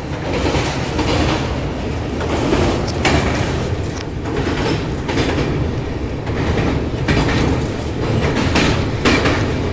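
Passenger train running across a steel truss bridge, a steady heavy rumble of wheels on rails with a few scattered clacks, heard through an open coach door.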